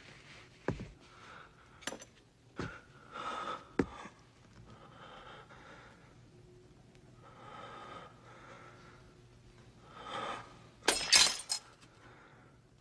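Pieces of a broken mirror clinking and shattering in a loud burst of glass about eleven seconds in, after a few sharp clicks in the first four seconds. Gasping breaths come and go between them.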